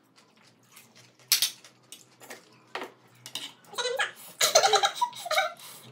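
Metal spoons clinking and scraping on ceramic plates during a meal, with a sharp clink about a second and a half in. Brief talk breaks in during the second half.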